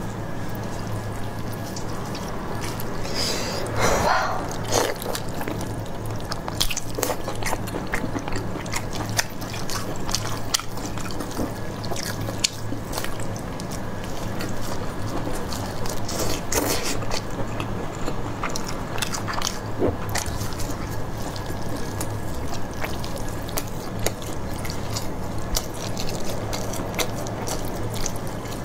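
Close-miked eating: biting into and chewing sauce-glazed beef ribs, with wet, sticky mouth sounds and many sharp clicks. A steady low hum runs underneath.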